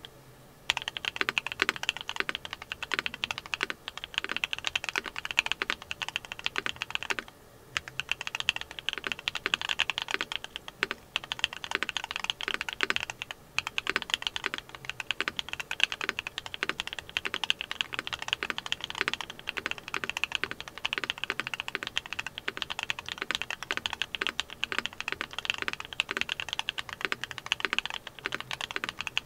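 Fast, continuous typing on a mechanical keyboard fitted with hand-lubed Duhuk Lumia Matcha V4 Pro linear switches, which have LY housings and heavy 62.5 g double-stage springs. The typing starts about a second in and breaks briefly three times in the first half.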